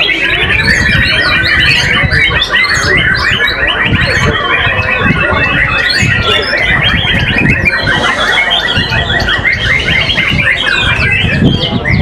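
Several caged white-rumped shamas (murai batu) singing at once: a dense, continuous chorus of rapid chattering phrases, trills and whistles.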